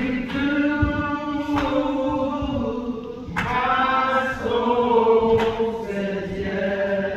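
A choir singing slowly in long held notes, moving to a new note every second or two.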